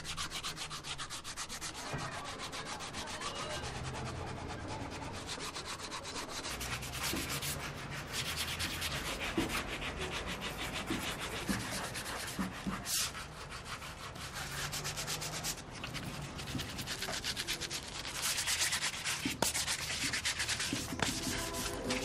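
A dense, steady crackle of rapid tiny clicks, with faint low tones underneath.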